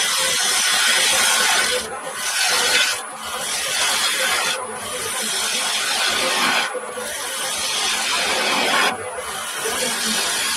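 Turning gouge cutting an end-grain wood blank spinning on a Record Power wood lathe: a steady cutting hiss broken by brief dips about every two seconds.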